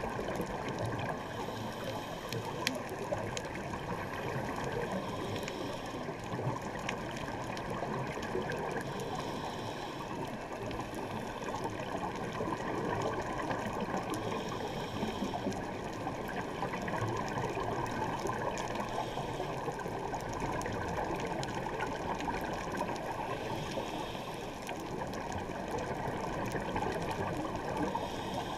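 Underwater sound through a GoPro's dive housing: a steady watery rush, with a scuba regulator's exhaled bubbles gurgling past every four to five seconds.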